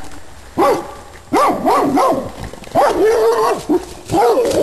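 Rhodesian Ridgebacks barking: a run of short rising-and-falling barks, with one longer drawn-out bark about halfway through.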